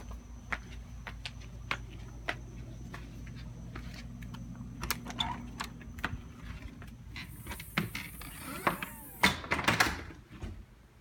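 A front door being unlocked and opened: scattered footsteps and clicks, then a jangle of keys and a burst of loud metallic clicks and rattles from the deadbolt and handle near the end. A steady low hum underneath drops away in the last second.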